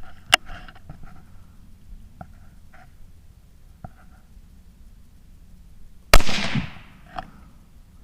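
A single shot from a .17 Mach 2 rimfire rifle firing CCI VNT ammunition about six seconds in: one sharp crack with a short ringing tail. A sharp click comes near the start, and a few faint chirps are heard before the shot.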